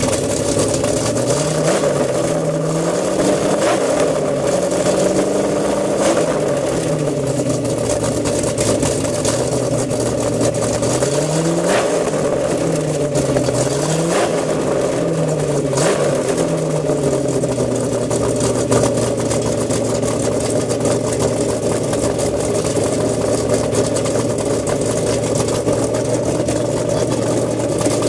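1932 Ford coupe street rod's engine revved in a series of quick blips, its pitch rising and falling again and again. It then settles to a steady idle about two-thirds of the way in.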